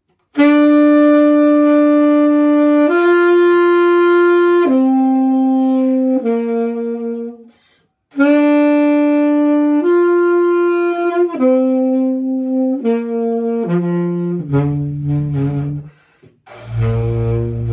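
Tenor saxophone played: a phrase of four held notes, a short break, the same phrase again, then a quick run down to a long low note near the end.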